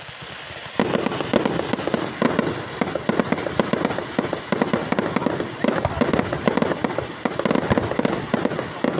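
Fireworks going off: a dense, continuous crackle of many quick sharp bangs that starts abruptly about a second in.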